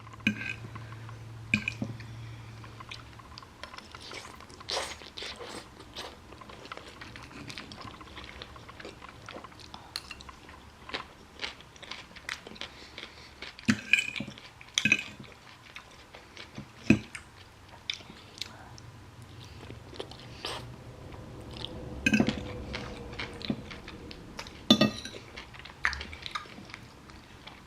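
A person chewing and crunching food close to the microphone, with scattered light clicks of chopsticks or utensils against the dish.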